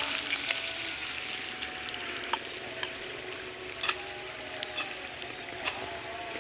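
Open-air ambience: a steady hiss with a few faint, wavering high tones and scattered faint clicks.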